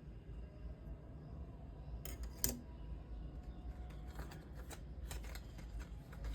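Handling sounds from unboxing a watch: short clicks and rustles of box and packaging, with one sharper click about two and a half seconds in and a quick run of clicks in the last two seconds.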